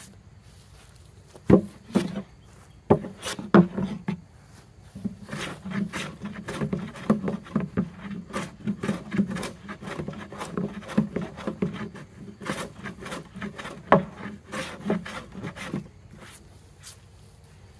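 A No. 5 jack hand plane shaving a pine board in a quick run of short scraping strokes, set for a light cut. A few sharp wooden knocks come in the first few seconds.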